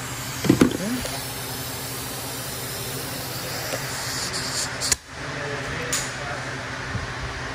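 A steady low hum with a hiss over it. There is a short loud knock about half a second in and a click about five seconds in.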